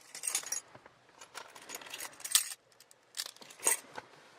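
A bunch of keys jangling and clinking in hand, in short irregular rattles with pauses between them.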